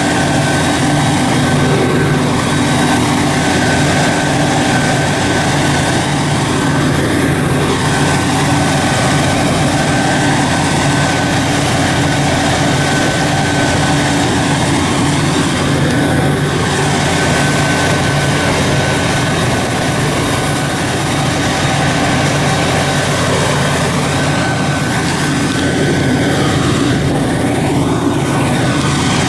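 Heavy diesel harvest machinery running steadily: a deep engine drone with a constant high whine over it.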